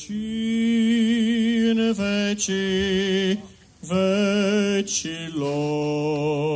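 A man's voice chanting Orthodox Byzantine liturgical chant, drawing words out into long held notes with a light vibrato. The melody moves in slow steps, with short breaths about two and three and a half seconds in, and the last phrase settles on a lower note.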